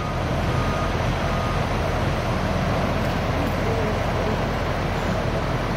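Truck engine running steadily to power the hydraulics of a Fassi truck-mounted crane holding a suspended silo: an even, unbroken mechanical hum.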